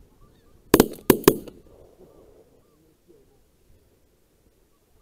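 Three shotgun shots in quick succession, about a second in, fired at geese flying overhead. Faint goose honks can be heard before and after the volley.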